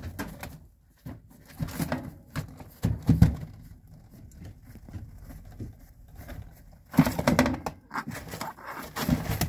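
White rabbits scuffling in straw bedding in a cage as a buck mounts a doe: irregular rustling of the straw with a few dull thumps.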